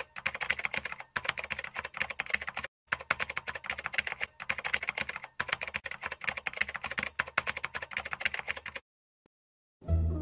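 Keyboard typing sound effect: rapid clicks in runs broken by short pauses, keeping time with text typed out letter by letter, stopping about nine seconds in. Music starts just before the end.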